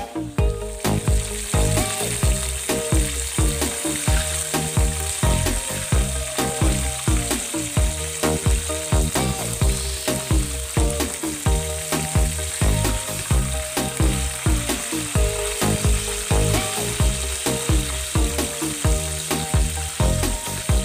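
Battered chicken pieces deep-frying in hot oil with a steady sizzle, turned now and then with metal tongs. Background music with a steady beat plays under the sizzle throughout.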